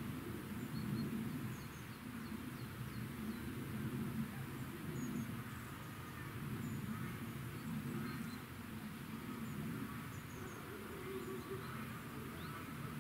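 Quiet outdoor ambience: a low, steady rumble that swells and fades a little, with faint, scattered chirps of small birds.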